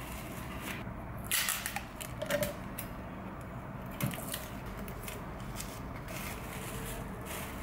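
Cellophane tape pulled from its roll and snipped with scissors, with crinkling cling film, in several short crackly bursts over a low steady hum.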